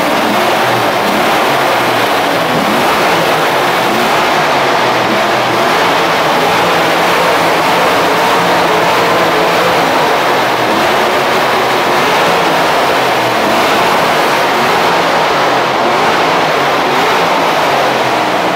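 Car engine running loudly and steadily close by, with no change in level throughout.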